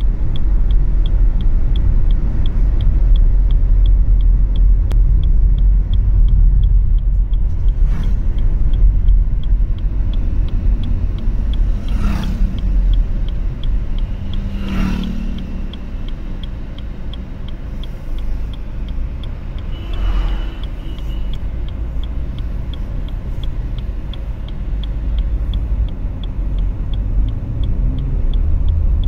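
Car cabin noise while driving: a steady low rumble of engine and road. A light ticking about twice a second runs under it, and there are a few brief louder sounds near the middle.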